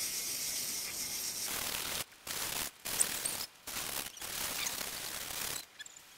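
A hand rubbing across a steel flywheel face, then an aerosol can hissing in several bursts separated by short breaks, cutting off shortly before the end.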